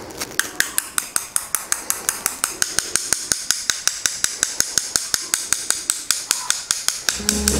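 Paintbrush being tapped repeatedly to spatter black ink onto paper: a steady run of sharp taps, about five or six a second.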